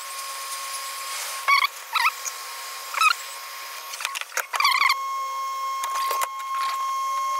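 Fast-forwarded audio from the soldering work, with no low sounds at all: short clusters of high, chipmunk-like squeaky chirps over a steady high whine.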